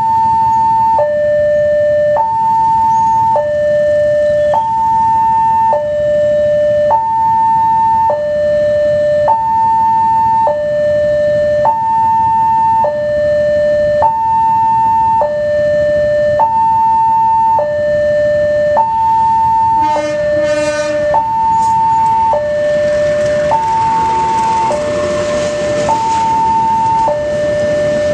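Indonesian railway level-crossing alarm sounding its two-tone warning for an approaching train, a high tone and a lower tone alternating about once a second. About twenty seconds in a horn sounds briefly. After that the rushing noise of the passenger train grows as it reaches the crossing.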